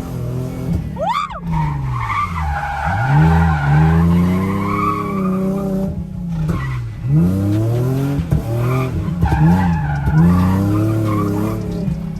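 Nissan 350Z drift car's V6 engine revving up and down over and over while its tyres squeal in a slide.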